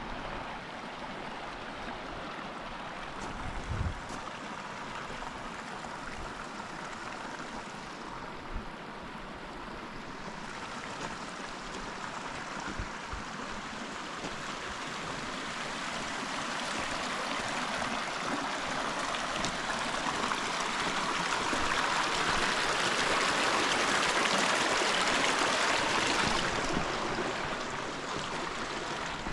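Mountain creek running, a steady rush of water that grows gradually louder for most of the stretch and then falls away fairly quickly near the end, with a couple of soft thumps early on.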